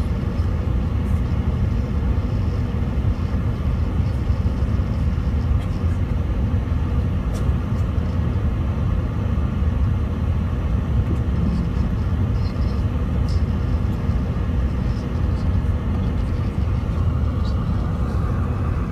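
Steady low rumble inside the cabin of an Airbus A380 on its landing approach: engine and airflow noise.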